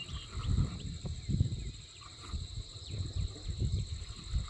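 Outdoor wildlife ambience: a steady high-pitched insect drone, with uneven low rumbling and a few faint bird chirps.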